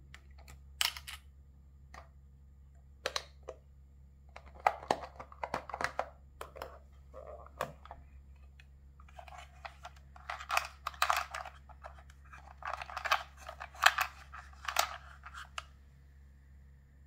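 Small plastic toy vending machine being handled: sharp plastic clicks and rattles in bursts as miniature bottles are loaded into it and a bottle is dispensed into its tray.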